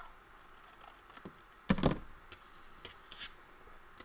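Hands handling a paper bag page on a craft table: a single thump about two seconds in, then a soft rustle of paper.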